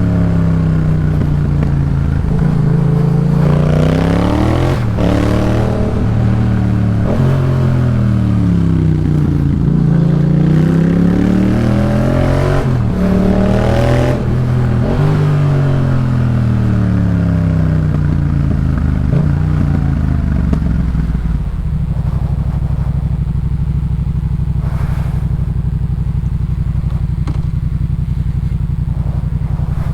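Yamaha MT-07's parallel-twin engine through a Jeskap K4 full aftermarket exhaust, its pitch rising and falling again and again as the bike speeds up and slows through the gears. About two-thirds of the way in it settles to a steady, even idle.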